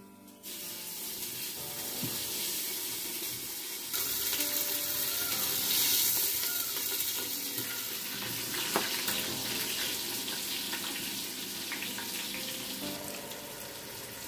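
Sliced onions frying in hot oil in a clay handi, a steady sizzle that grows louder about four seconds in.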